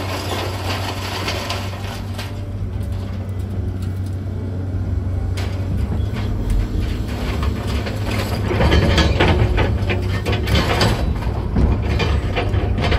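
Heavy diesel equipment running steadily, with clattering and crunching of demolition debris that grows louder about eight seconds in.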